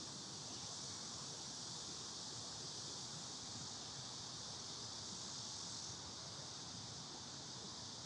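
Steady, high-pitched drone of a cicada chorus, with no breaks, over a faint low rumble.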